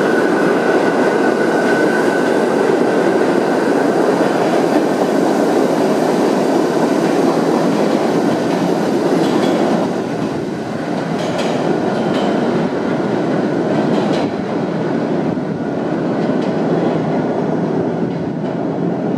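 R68A subway train running through the station without stopping, a loud steady rumble of wheels on rail with a thin high whine over it in the first couple of seconds. About ten seconds in the rumble drops a little as the train goes off into the tunnel, with a few sharp clicks of wheels over the track.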